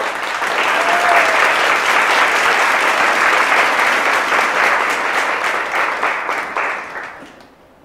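Audience applauding, with a dense patter of many hands clapping that fades away near the end.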